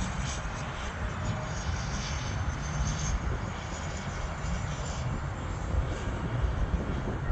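Jet aircraft engines on landing approach: a steady rushing engine noise with a faint high turbine whine.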